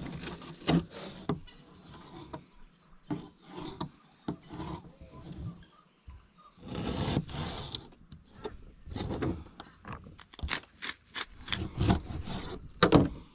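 A run of irregular knife scrapes and taps on a hard work surface as small whiting are filleted. About seven seconds in there is a longer scraping stretch, and near the end come sharp knocks as the knife cuts through a kaffir lime and strikes the surface.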